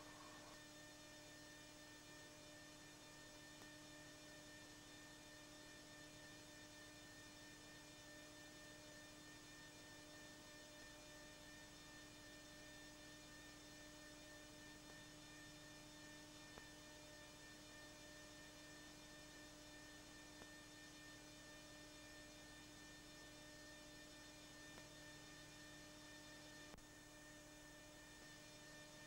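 Near silence: a steady electrical hum with faint hiss, and a few tiny clicks.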